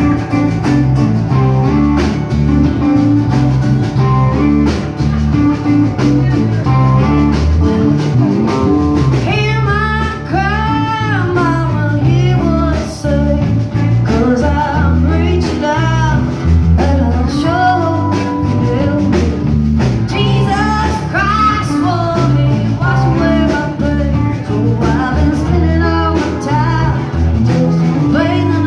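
Live country-rock band playing: acoustic guitar, electric guitar, electric bass and drums keep a steady beat, and a woman's lead vocal comes in about nine or ten seconds in and carries on in phrases over the band.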